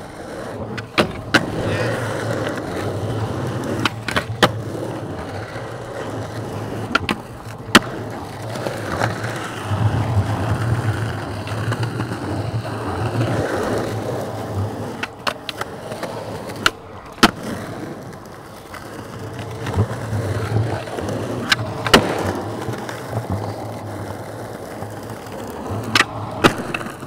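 Skateboard wheels rolling over smooth concrete, the rumble swelling and fading as the skater rolls along. It is broken by about a dozen sharp clacks of the board popping and smacking down, the loudest about a third of the way in, past halfway and about three quarters in, with a pop and landing near the end during a flip trick.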